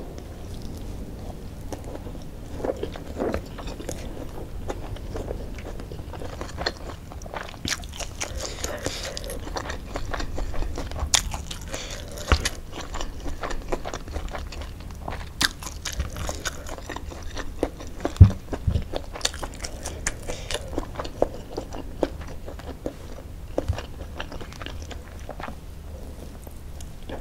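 Close-up chewing and crunching of fried martabak and spicy noodles: many short, irregular crunches and clicks, with one louder knock about eighteen seconds in.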